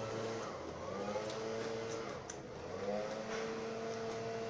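Lawn mower engine running, its pitch rising and falling every couple of seconds as it works.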